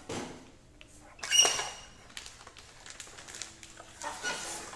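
A short high-pitched squeak about a second and a half in, amid light handling knocks and rustles.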